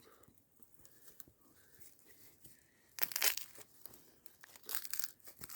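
Dry shredded bark tinder being crumpled and torn by hand to feed a just-lit fire: faint crinkling at first, then short, louder bursts of tearing and crackling from about three seconds in.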